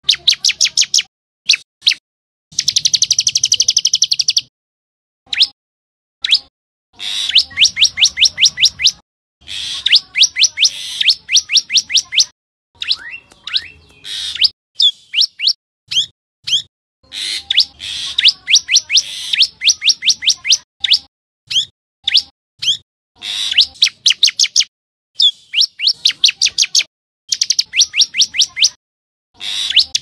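Common tailorbird singing: loud runs of rapid, evenly repeated high chirps, each run lasting one to two seconds, with short pauses between them.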